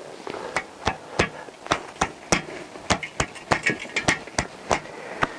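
Irregular sharp clicks and knocks, about three a second, from hands working on a motorcycle swing arm.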